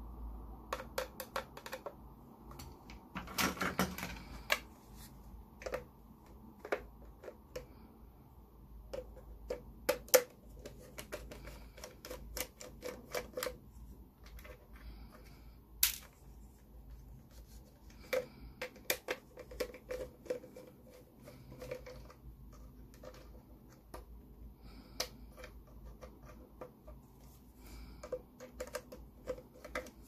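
Screwdriver working the small screws out of a Dyson V6 vacuum's plastic cyclone and motor housing: irregular clicks and taps of metal on plastic as the housing is turned in the hand. There is a short scraping rattle about three seconds in and a sharp clack about halfway through.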